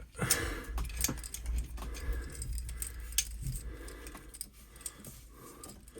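Metal hose clamps clinking and rattling against each other as they are picked through by hand: a run of small, irregular metallic clicks.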